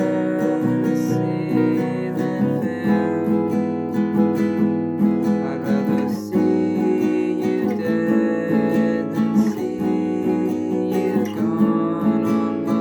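Acoustic guitar being strummed through a passage of the song, with no voice.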